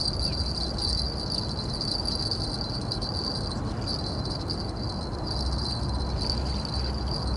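Steady, high-pitched trilling of insects such as crickets or grasshoppers, over a constant low, rushing background noise.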